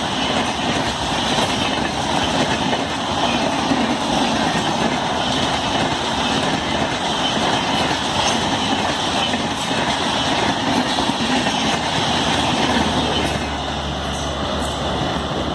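A train running along the rails: a steady rumble of wheels with clickety-clack over the rail joints, easing a little near the end.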